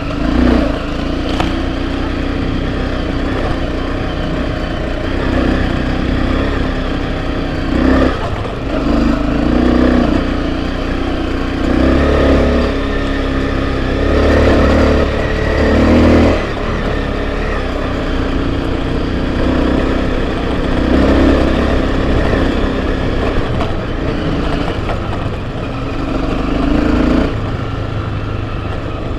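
Enduro motorcycle engine being ridden over a trail, throttle opening and closing so the engine note swells and eases every few seconds, with a few short knocks.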